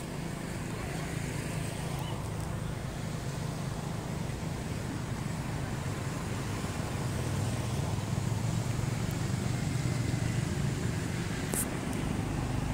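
Steady low rumble of a motor vehicle engine, growing a little louder past the middle, with a brief high click near the end.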